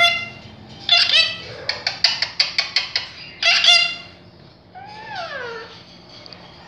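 Indian ringneck parakeet calling: a few short pitched calls and a quick run of about eight clipped notes around two to three seconds in. Near the end comes a longer note that slides down in pitch.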